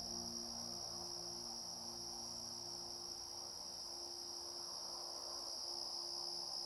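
Steady high-pitched chorus of crickets trilling without a break, over a few faint, sustained low drone tones.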